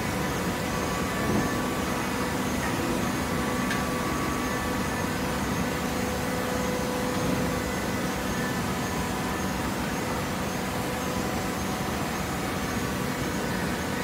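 Automatic horizontal hydraulic baler running: a steady machine hum and hiss with a few faint held tones.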